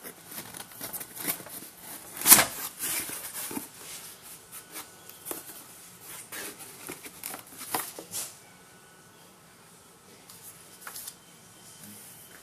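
Cardboard packaging of a lock kit being opened and handled: scattered rustles and clicks, with one sharp knock about two seconds in, quieter near the end.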